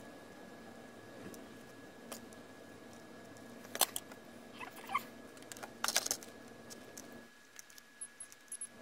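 Small hand tools being handled on a workbench: scattered light clicks, with sharper clatters about four and six seconds in, as soldering tools are put down and multimeter test leads are picked up. A faint steady high tone runs underneath.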